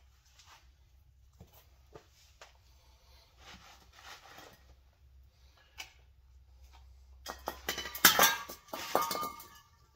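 Metal knocking and clinking as an RCV axle's CV cup is forced into a GM Dana 44 steering knuckle, a tight, hard fit. Faint handling sounds give way, about seven seconds in, to a burst of sharp knocks with some ringing, loudest about eight seconds in.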